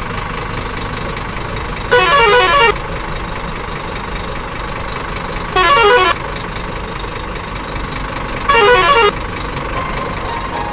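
Truck engine running steadily, with three short blasts of a warbling multi-tone horn about two, six and eight and a half seconds in.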